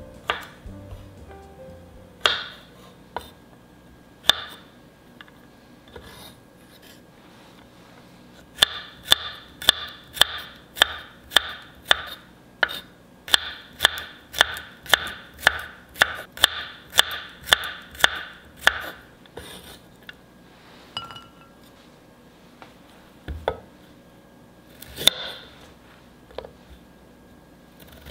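Kitchen knife slicing garlic cloves on a wooden cutting board: a steady run of sharp knocks, about two a second, for some ten seconds in the middle, with scattered single knocks before and after.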